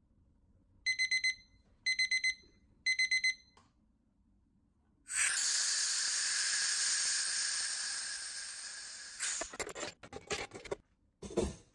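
Digital kitchen timer beeping at zero in three sets of four quick high beeps. Then a pressure pot's compressed air is vented through its release valve in a loud hiss that slowly fades over about four seconds. Near the end come metal clanks as the lid's wing-nut clamps are loosened.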